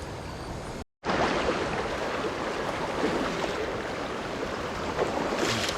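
Steady rush of river water, cut off for a split second about a second in, then louder and even.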